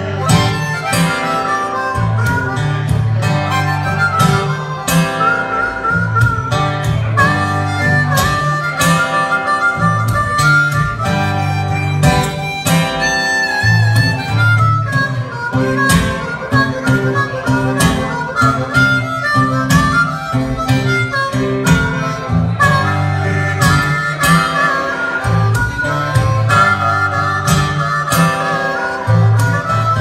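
Blues harmonica solo with bending, wavering notes, played over an Eastman E10OM acoustic guitar repeating a low riff.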